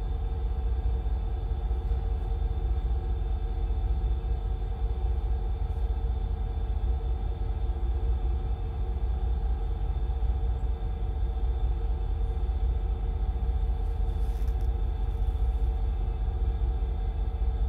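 Steady low rumble of ship's machinery with a constant hum of several tones above it, unchanging throughout.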